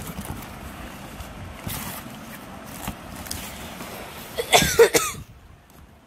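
Hands rustling against cloth and a cardboard box, then a person's short, loud cough about four and a half seconds in.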